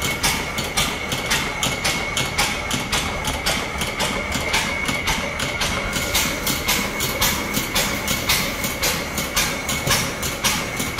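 Fairbanks-Morse Model T 4 hp vertical single-cylinder hit-and-miss engine with large flywheels running, an even rhythmic clatter of about three to four beats a second, with a steady high whine underneath.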